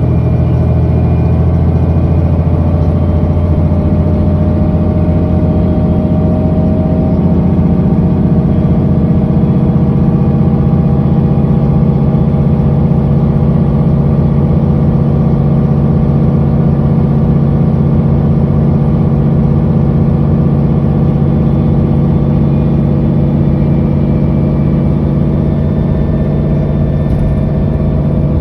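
Mercedes-Benz O530G articulated bus's diesel engine running steadily under way, its pitch stepping up a few seconds in and then holding.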